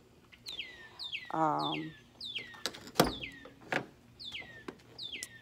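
A bird calling over and over, each call a quick downward slur, about eight in a row. A brief wavering hum of a human voice comes about a second and a half in, and a sharp knock comes about three seconds in.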